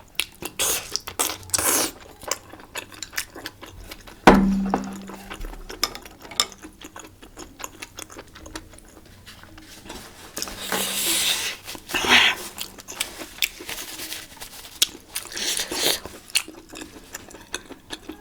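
Close-miked eating of spicy malatang hotpot: chewing and biting, with utensils clicking against dishes. One sharp knock with a short ring about four seconds in.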